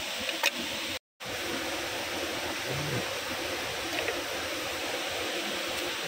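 Steady rushing of a waterfall and river water, a constant even hiss. A sharp click comes about half a second in, and the sound drops out completely for a moment about a second in.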